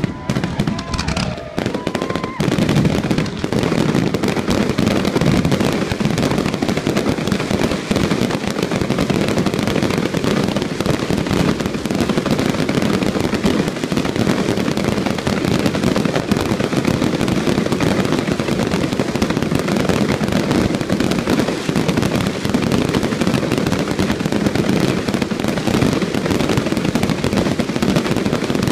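Fireworks display: a dense, unbroken barrage of bangs and crackles, with a few whistling fireworks in the first couple of seconds.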